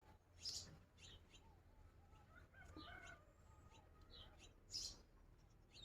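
Faint birds calling: a few short, high chirps, with lower, repeated arched call notes in between.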